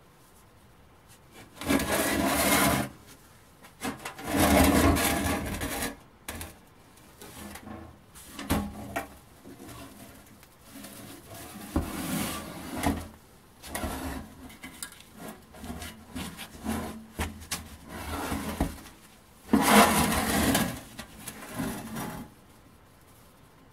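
Rusty metal German machine-gun ammunition box being handled: its lid and body scrape, rub and knock as it is opened, lifted and turned. There are three louder scraping spells, about two seconds in, from four to six seconds, and around twenty seconds, with lighter clicks and knocks between.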